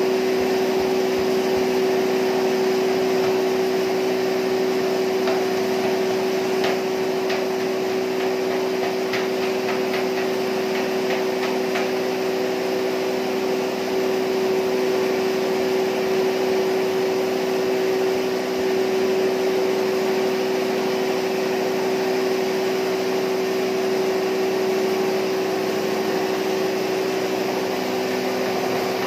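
Belt-driven electric posho mill (hammer mill) running steadily while grinding maize and cassava into flour, a constant loud hum with a steady whine. A few faint clicks come through in the middle.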